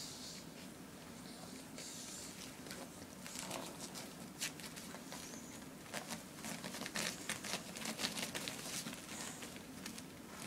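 Puppies nursing and squirming against their mother on crinkly puppy pads: an irregular run of soft suckling clicks, smacks and rustles, busiest in the second half.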